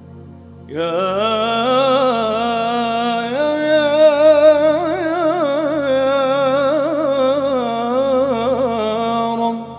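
A male nasheed singer holds a long, richly ornamented melisma on the syllable "yā", the pitch wavering and turning in quick trills, over a steady low drone. The voice enters just under a second in and stops near the end.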